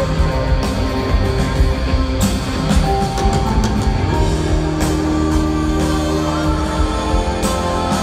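Live rock band playing through an arena PA, heard from the audience: drums with a cymbal crash every couple of seconds, guitars, and held notes from a saxophone and trumpet horn section.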